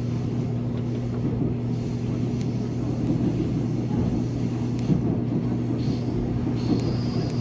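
Seoul Subway Line 1 electric train running steadily at speed on the track: a continuous rumble with a steady low hum, a few faint clicks, and a thin high-pitched whine that comes in near the end.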